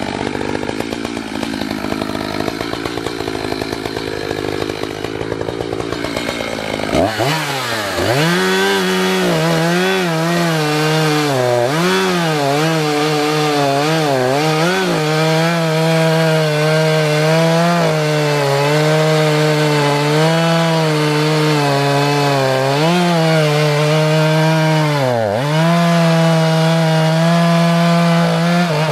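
Echo CS-590 Timber Wolf two-stroke chainsaw idling for about the first seven seconds, then revving to full throttle and cutting through a white oak log. The engine pitch wavers and dips several times as the chain bites into the wood.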